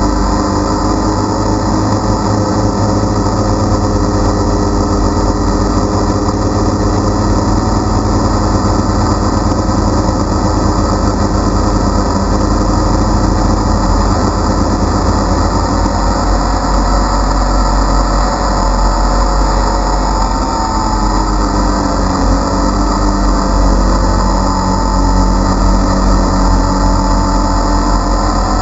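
DJI Phantom quadcopter's motors and propellers buzzing steadily in flight, picked up by the GoPro mounted on the drone. The pitch shifts slightly now and then as the drone manoeuvres.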